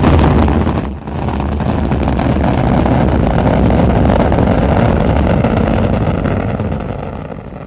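Rocket engine firing during stage separation: a sudden loud burst, a brief dip about a second in, then a steady deep rushing noise of the upper stage's engine that slowly tapers near the end.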